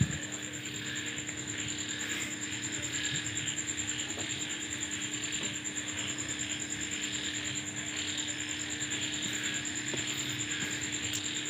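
Ratchet wrench clicking lightly as a water pump bolt is slowly tightened, over a steady high-pitched background drone.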